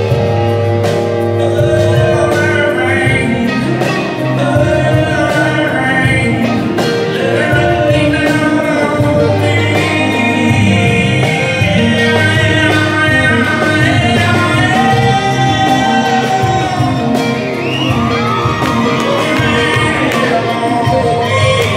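Live band playing a slow country song: a male lead vocal over acoustic guitars and keyboard, with a hand shaker keeping time.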